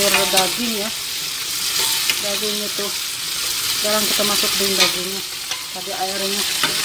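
A metal ladle stirring chicken in sauce in a stainless steel pot on the stove, over a steady sizzling hiss from the cooking food. The ladle clicks against the pot's side a few times.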